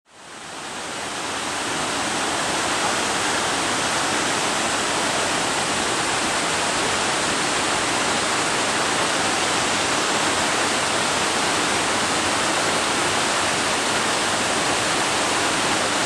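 Waterfall cascading over rock ledges: a steady rush of falling water, fading in over the first two seconds.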